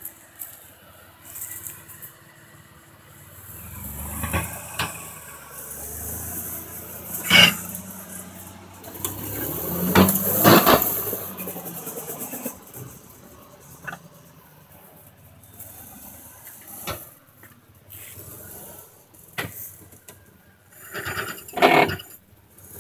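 Jeep working over rough off-road ground: the engine swells twice under load, with scattered knocks, clanks and rattles from the vehicle.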